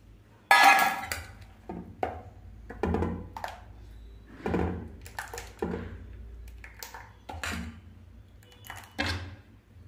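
Steel ladle stirring thick rice-and-cucumber dosa batter in a steel bowl. A loud clatter comes about half a second in, then a string of irregular knocks and wet slaps as the ladle moves through the batter and against the bowl, roughly one a second.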